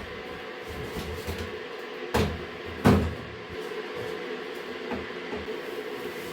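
Two sharp knocks, under a second apart, over a steady low hum.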